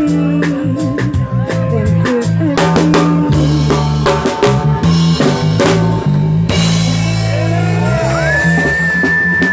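Live band jamming: a five-string electric bass line and a drum kit keep a steady groove, and a long high note is held near the end.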